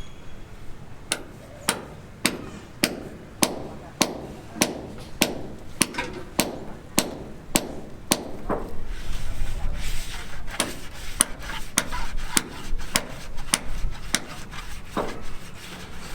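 Repeated hammer blows on a building site, struck steadily at a little under two a second, each ringing briefly. The blows grow faster and less regular about halfway through.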